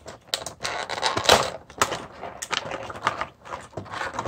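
Stiff clear plastic blister packaging crackling and clicking in quick, irregular snaps as an action figure is worked free of its tray.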